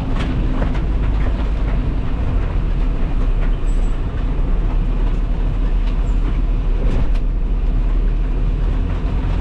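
Steady low rumble of a vehicle driving on a wet road, heard from inside the cab, with heavy rain on the windshield and the wipers sweeping.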